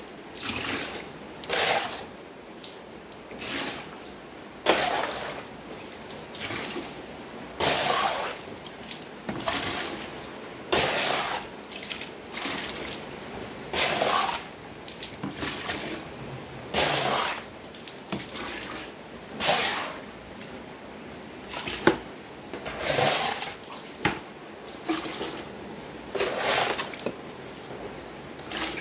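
Shallow floodwater being bailed off a tiled floor with a plastic scoop and tipped into a plastic bucket. A splashy swish repeats every second or two, about twenty times.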